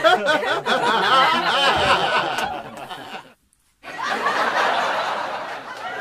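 Laughter with high, warbling pitch, cutting off about three seconds in. After a short silence a rougher, noisier stretch follows.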